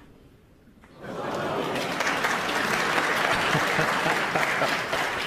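Snooker arena audience applauding a fluked pot on the yellow. The applause starts suddenly about a second in, after a quiet moment, and carries on steadily.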